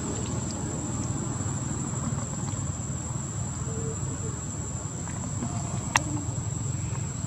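Insects droning outdoors, one steady high-pitched whine that holds without a break, over a continuous low rumble. A single sharp click about six seconds in.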